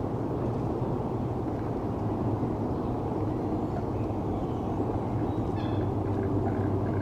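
Steady low rumble of distant city traffic with a constant low hum. A few faint, short, high bird chirps come through about halfway in.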